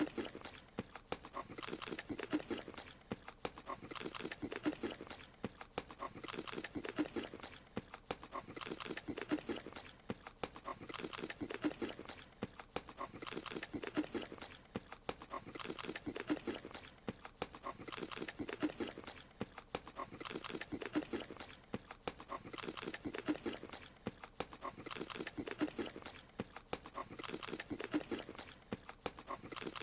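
Cartoon sound effect of a small creature eating: a quick run of wet chomping and munching noises. It starts with a sharp snap and repeats as an identical loop about every two seconds.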